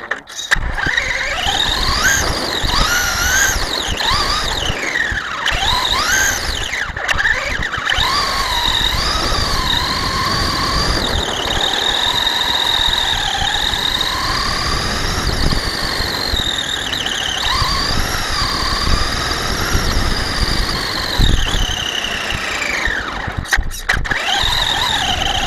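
Electric motor and drivetrain of an RC truck whining as it is driven, the high pitch rising and falling with the throttle, over the rumble of tyres on the ground. The sound briefly cuts out near the start and again near the end.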